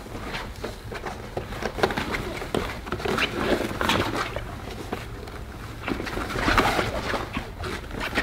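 English bulldog puppies whimpering and grunting in short calls, with scratching and shuffling of paws as they clamber about in a fabric wagon.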